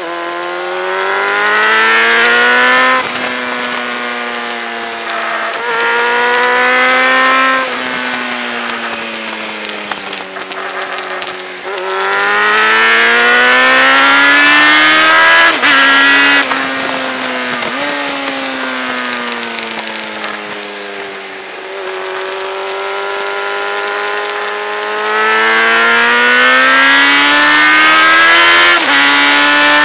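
Motorcycle engine heard on board at track speed: it revs up through the gears, with about five quick upshifts where the pitch drops suddenly, and winds down twice off the throttle, under a steady rush of wind.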